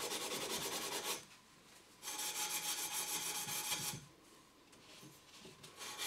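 Scotch-Brite abrasive pad scrubbed rapidly back and forth on a copper pipe, cleaning it to bright metal for good electrical contact. The scrubbing stops about a second in, starts again, pauses again about four seconds in, and resumes near the end.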